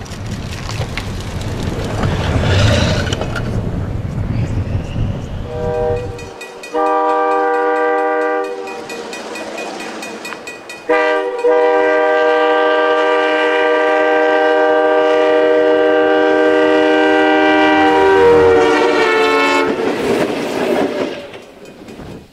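A snow-plow train pushing through deep snow with a rushing rumble, then a locomotive air horn: a short blast about seven seconds in, and from about eleven seconds a long blast held for about nine seconds.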